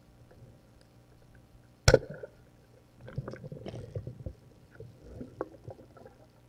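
Muffled underwater sound from a diver's camera and gear on a night dive: one sharp click or knock about two seconds in, the loudest moment, then scattered small knocks and rustles.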